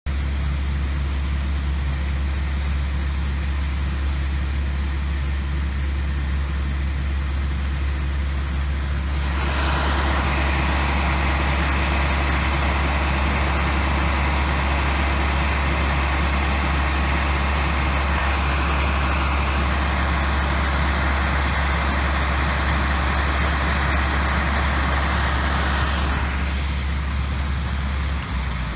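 Combine harvester running steadily with a deep, even engine drone. A broad hiss of machinery noise joins in about nine seconds in and drops away again near the end.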